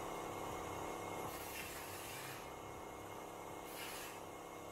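Air-powered spray gun hissing in two bursts as Stone Guard is sprayed inside a car door panel: one of about a second, then a shorter one, over a steady low hum.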